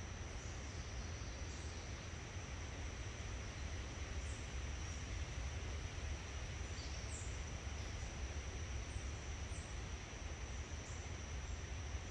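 Forest ambience: a steady high-pitched insect drone with scattered short bird chirps, over a constant low rumble and hiss.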